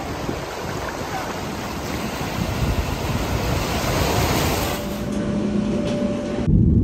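Small waves washing in and breaking on a sandy beach. About five seconds in this gives way to the steady hum of an airliner at its boarding door, and just before the end a loud low rumble starts suddenly.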